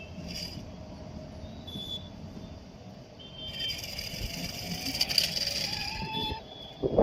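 Toy off-road RC car running: a small electric motor whine and tyre noise, louder from about halfway through, with the whine rising slightly in pitch near the end.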